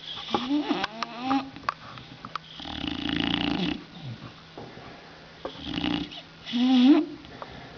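Sleeping bulldog snoring: two long noisy snores, one about three seconds in and one near six seconds, with short squeaky whistles rising in pitch in her breathing before and after them.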